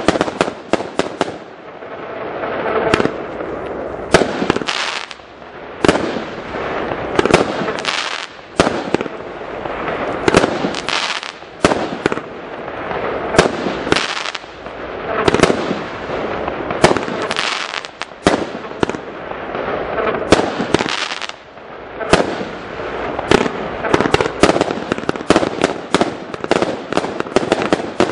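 Aerial fireworks launching and bursting: many sharp bangs, often coming in quick clusters, over a continuous noise of the display.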